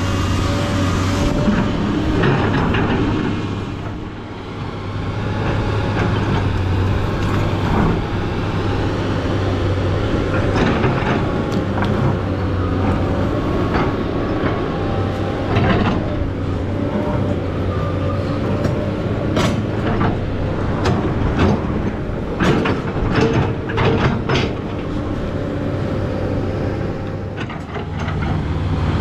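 SANY SY215C hydraulic excavator working, its diesel engine running steadily under load with a wavering hydraulic whine. Sharp metallic knocks and clanks from the bucket and tracks come and go, bunched together about two-thirds of the way through.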